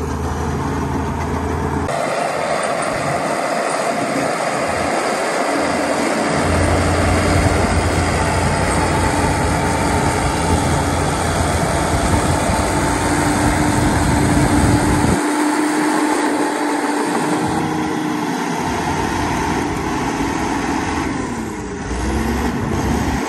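Heavy diesel earthmoving machinery running steadily at work, a continuous engine drone over mechanical noise; near the end the engine pitch briefly dips and rises again.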